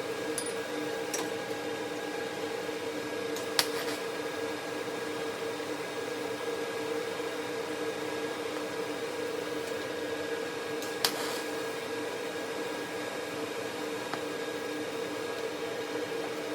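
A steady machine hum with two sharp clicks, one a few seconds in and one about eleven seconds in.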